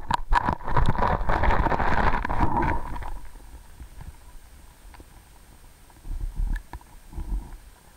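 Sound picked up by a camera submerged in a creek: a dense run of clicking and knocking over a low rumble for about three seconds, then quieter, with two short low thumps near the end.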